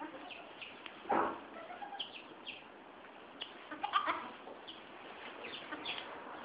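Farm animals calling in the background: short calls scattered throughout, with louder ones about a second in and again around four seconds in.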